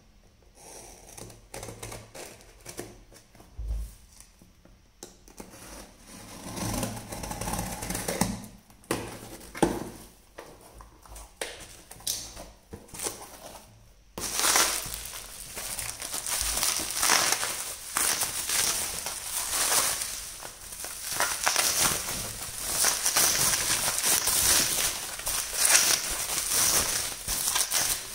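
A cardboard parcel being opened with a snap-off utility knife, with scattered scrapes and clicks of the blade and flaps. About halfway through, a sudden switch to plastic bubble wrap being handled and pulled out: continuous, loud crinkling and crackling.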